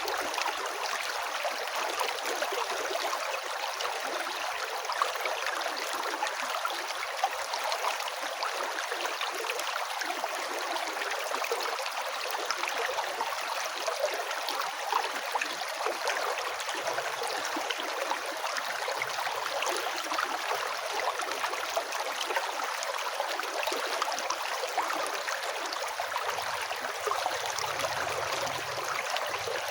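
A river rushing and babbling steadily over its bed, an even hiss of moving water with fine splashes.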